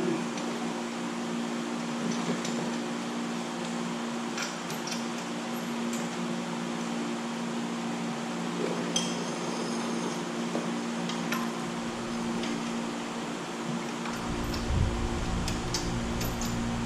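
Scattered light metallic clinks and taps of hand tools and car parts being handled, over a steady hum. A dull low rumble comes in near the end.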